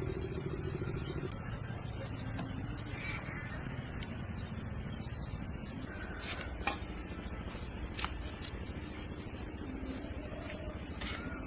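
Steady high-pitched insect chorus over a low rumble, with two short clicks about two-thirds of the way through.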